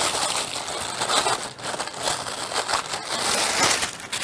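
Protective wrapping being peeled and pulled off the metal shaft of a cordless grass trimmer: an irregular run of rustling and scraping noises.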